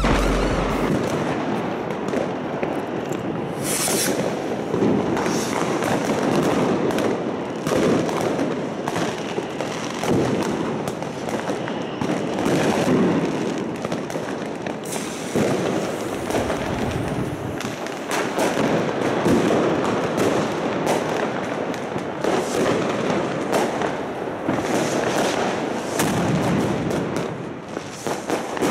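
Fireworks going off all around without letting up: many firecracker bangs and crackles, with rockets overhead. Among them is the bang of a 45-gram Czech Delova Rana Profi firecracker.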